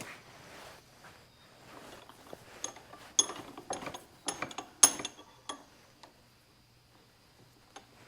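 Sharp metallic clicks and clinks of tools and a small steel push-on locking washer being handled and worked, about a dozen in three seconds, then quiet.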